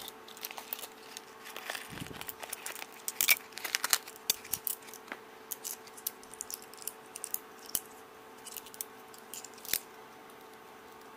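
Hands handling small parts and packaging from a soldering iron kit: scattered clicks, taps and rustling, thickest in the first few seconds and thinning out later, over a faint steady hum.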